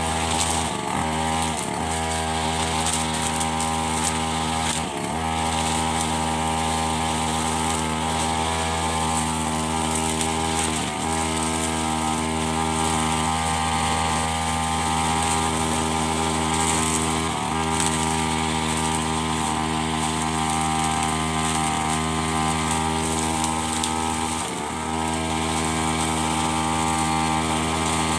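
Backpack brush cutter running at high speed with nylon trimmer line, cutting grass; its engine note dips briefly every few seconds as the throttle eases off and comes back up.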